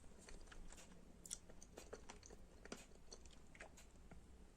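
Faint chewing of braised potatoes with meat, with scattered small, soft clicks.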